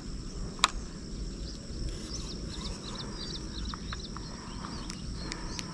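Rural outdoor ambience: small birds giving short high chirps over a steady high-pitched insect drone and a low rumble, with one sharp click about half a second in.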